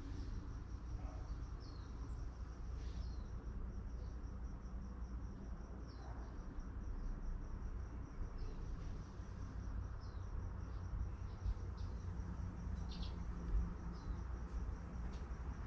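A steady, rapidly pulsing high insect trill with short falling chirps now and then, over a low steady rumble.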